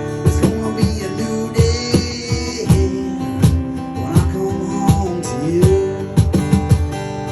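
Live band playing an instrumental passage: strummed guitar over a steady beat of drum hits about twice a second.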